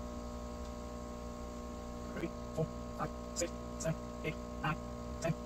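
Steady electrical hum from the reef aquarium's running equipment. From about two seconds in, a run of short light ticks comes about twice a second, as powder is measured out with a small scoop.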